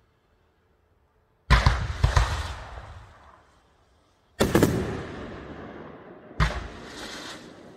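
Fireworks going off: three sharp bangs, about a second and a half in, near four and a half seconds and near six and a half, each trailing off over a second or two.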